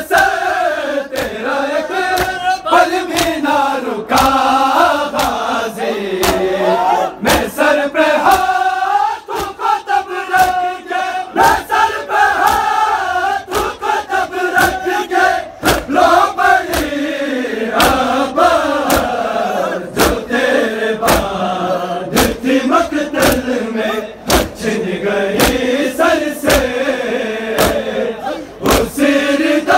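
A large crowd of men chanting a Shia noha (lament) in unison, with the sharp slaps of bare hands beating on chests (matam) landing in a loose rhythm, roughly one or two a second.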